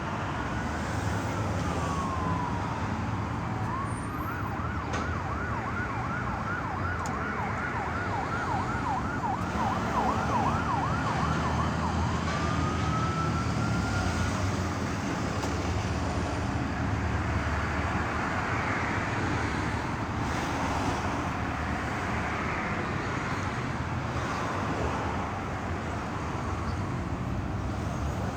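Emergency vehicle siren passing on the street. It falls in a slow wail, switches to a fast yelp from about four seconds in until about twelve seconds, then rises again in a wail before fading. Steady traffic rumble runs underneath.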